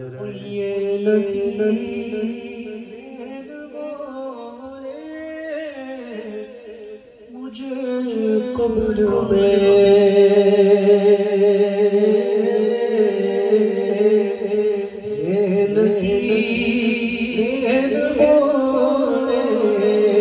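A man singing a naat, with long held, wavering notes. The singing is softer for the first several seconds and louder from about eight seconds in.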